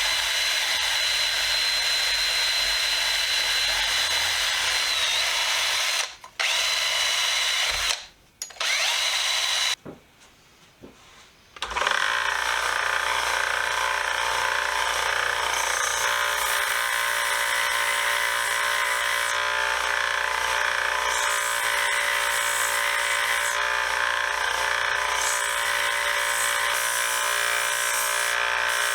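A power tool running steadily, with short stops about six and eight seconds in and a longer pause around ten seconds. After that it runs on with a slightly different pitch.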